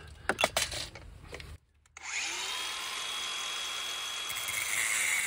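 A few light knocks as the rebar is handled. About two seconds in, a Makita cordless angle grinder starts, whines up to speed and runs steadily. Near the end its sound shifts lower as the disc cuts into a length of rebar.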